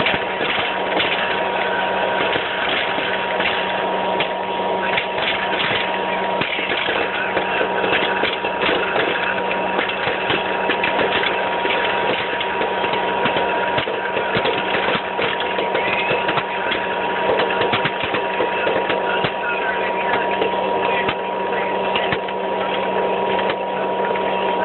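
Hot-air popcorn popper running: the fan blows with a steady hum and whir while kernels pop now and then as sharp clicks over it.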